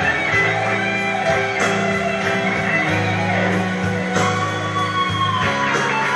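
Instrumental break of a Cantonese pop ballad, without singing: guitar over steady bass and held chords, with a lead line bending down in pitch about four to five seconds in.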